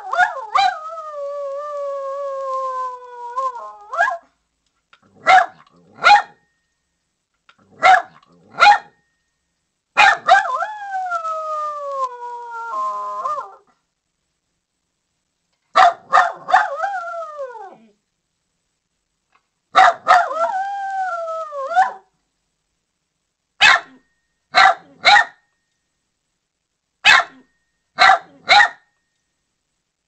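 A poodle barking and howling: four long howls that slide down in pitch, each lasting two to four seconds, broken up by short sharp barks that mostly come in quick pairs. The last few seconds hold only paired barks.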